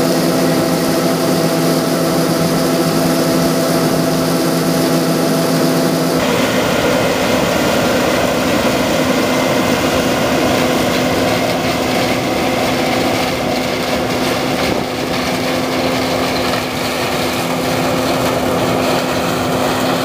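John Deere 9500 combine's diesel engine and machinery running steadily. At first it is a droning hum while the unloading auger pours shelled corn into a wagon. After an abrupt cut about six seconds in, it turns to a broader, rougher running noise as the combine harvests corn.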